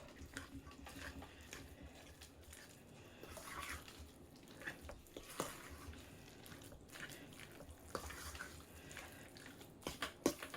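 Faint wet squishing and scraping as a utensil mixes refried beans and cream cheese in a bowl, with scattered soft clicks of the utensil against the bowl.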